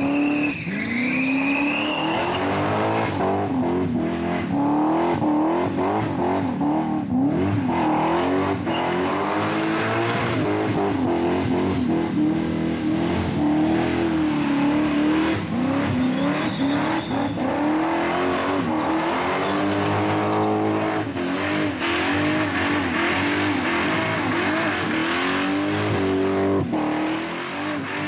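V8 engine of a Holden Commodore held at high revs during a burnout, its pitch rising and falling again and again as the throttle is worked, with the spinning rear tyres squealing at times.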